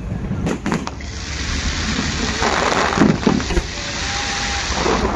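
Aerial fireworks: gold crackling stars sizzling in a dense, building crackle that sets in about a second in. A few sharp bangs from shell bursts come near the start and around three seconds in.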